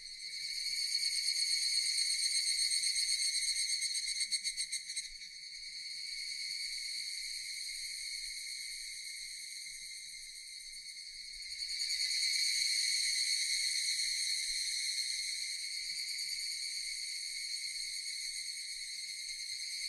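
Japanese cicadas buzzing in a steady, high-pitched drone. It swells loud just after the start, pulses rapidly for about a second, eases off, then swells loud again about halfway through.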